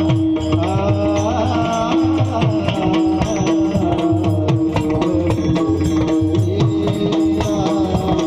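Devotional bhajan singing by male kirtan singers over mridang drum strokes, with a steady drone note held underneath.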